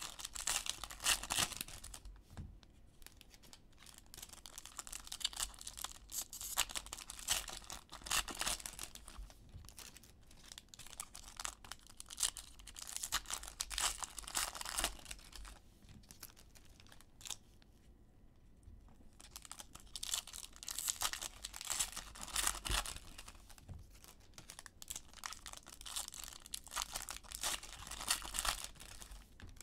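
Foil baseball card pack wrappers being torn open and crinkled by hand, in repeated rustling bursts broken by short pauses.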